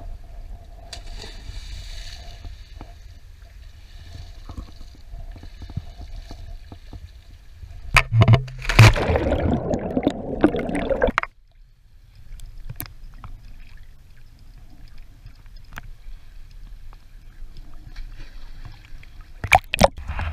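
Seawater splashing and sloshing loudly about eight seconds in as a waterproof action camera goes under. The splashing cuts off suddenly into muffled underwater sound with a low rumble, and a few sharp splashes come near the end as the camera breaks the surface.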